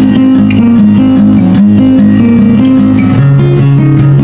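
Loud guitar music, plucked and strummed in a steady rhythm.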